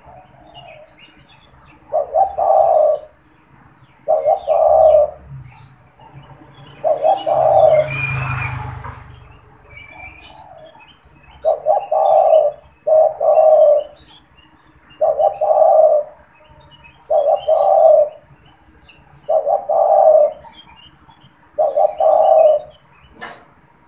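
Male spotted dove (tekukur) cooing, one phrase after another about every two seconds, with small birds chirping faintly behind it. About eight seconds in there is a brief rustling burst of noise.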